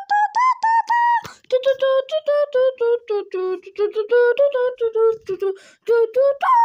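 A child's voice singing a quick made-up tune in short, rapid syllables, about five a second; the pitch drops lower about a second and a half in and climbs again near the end.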